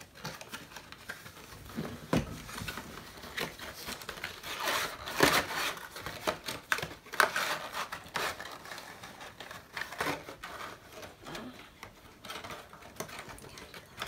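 Small cardboard toy box being worked open by hand: the end flap and tucked tab scraping, crinkling and tapping in irregular bursts, louder around five and seven seconds in.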